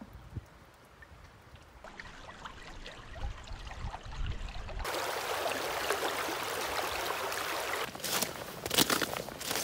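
Flowing river water, faint with a few small clicks at first, then a steady rush from about halfway. Near the end come several crunching footsteps on loose stream-bed stones.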